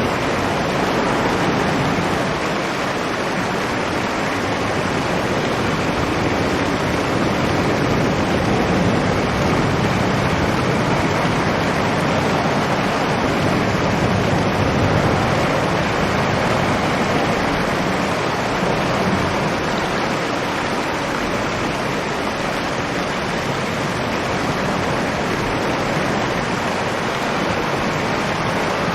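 Strong storm wind heard from inside a cave: a steady, loud rushing roar that swells and eases gently, with no separate gusts or knocks.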